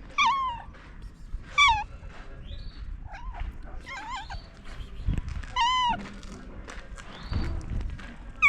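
A cat meowing repeatedly: about six short, high meows, each bending up and down in pitch, a second or two apart.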